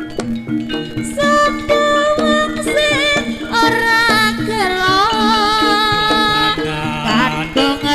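Live Javanese jaranan accompaniment music: a percussion ensemble plays short pitched metallic notes over a held low gong-like tone. About three seconds in, a wavering melody line joins, sung or played on a reed instrument.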